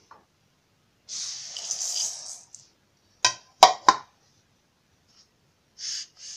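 Dry rice grains poured from a cup into a stainless steel vessel, a grainy rattling hiss lasting about a second and a half. Three sharp metallic clinks follow, and near the end a second, shorter pour of grains begins.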